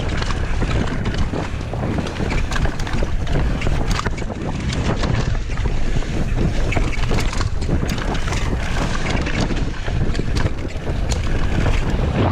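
Wind buffeting the microphone during a fast downhill mountain-bike descent on a Specialized S-Works Demo, with tyres on dirt and frequent knocks and rattles from the bike over rough ground.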